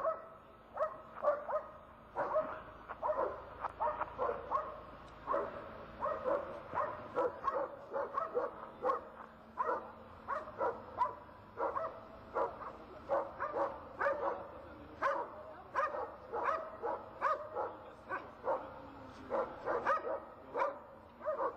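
A dog barking over and over without a break, about two to three barks a second.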